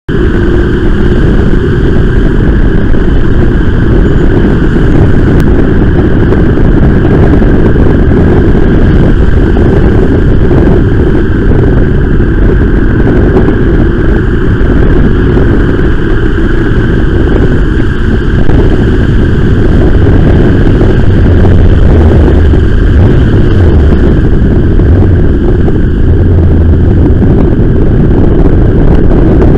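Loud, steady low rumble of wind and road noise on a cyclist's camera while riding in city traffic, with vehicle engines mixed in.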